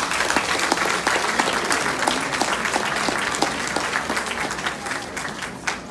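Audience applauding with many hands, dying away near the end.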